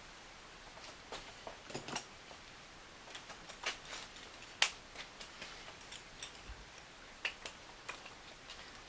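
Scattered light clicks and taps of small wooden pieces and tools being handled on a workbench, the sharpest one a little past the middle.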